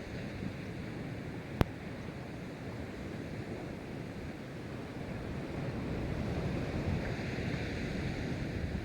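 Pacific Ocean surf breaking and washing in a steady rush that swells in the second half, with wind buffeting the microphone. A single sharp click about a second and a half in.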